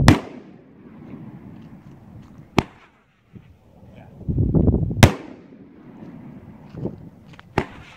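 8-shot Roman candle firing: a loud bang as a shot bursts at the start, a sharp crack about two and a half seconds in, then the low whoosh of the next shot launching that ends in another loud bang about five seconds in, and a further crack near the end.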